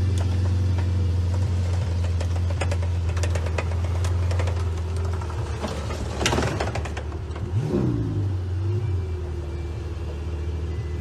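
A vehicle engine idling with a steady low hum, under repeated clicks, knocks and rattles of broken plastic as a crash-damaged car's front bumper is tugged and worked loose, the clatter busiest about six seconds in.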